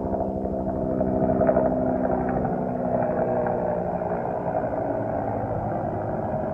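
An engine running, with a low, even hum and a fast pulse. The hum is clear for the first couple of seconds, then turns rougher and less distinct.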